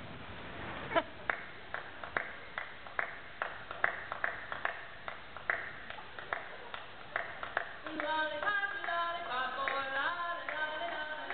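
Sharp hand claps in an uneven rhythm, two or three a second. About eight seconds in, recorded music with singing starts.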